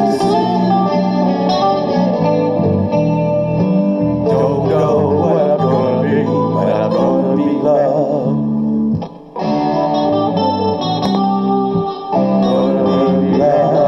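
Instrumental song music led by guitar with a chorus effect, played back through a portable PA speaker, with a brief drop in level about nine seconds in.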